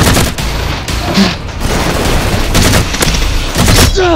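Rapid, repeated gunshot sounds with heavy booms, the dubbed gunfire of a shooter-game style edit rather than the soft pop of foam blasters. A pitched sound sliding downward comes in right at the end.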